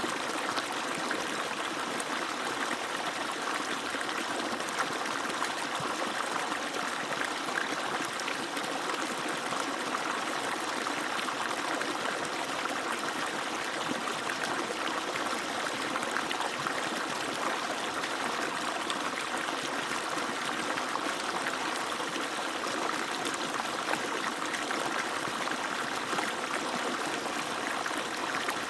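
Water from an agricultural pump's outlet falling in a steady, unbroken stream.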